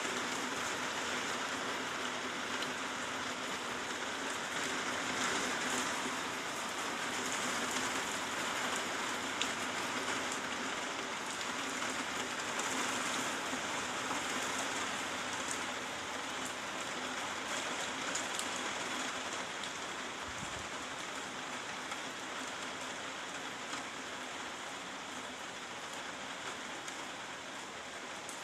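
Steady rain falling, an even hiss of patter, easing off a little in the second half.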